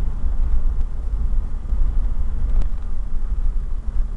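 Four-wheel-drive vehicle driving along a rough dirt track, heard from inside the cabin: a steady low rumble of engine and tyres, with one sharp click about two and a half seconds in.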